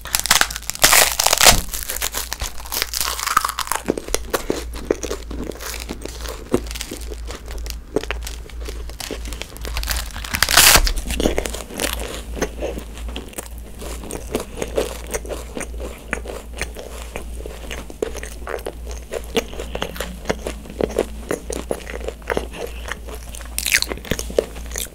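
Close-miked biting and chewing of sheets of edible colored paper: a steady run of crisp crunching and crackling, loudest at the first bite near the start and again around ten seconds in and near the end.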